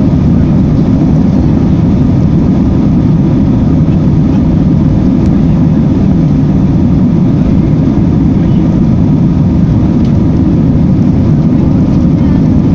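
Airbus A320's jet engines at take-off thrust during the take-off roll, heard inside the cabin: a loud, steady low rumble.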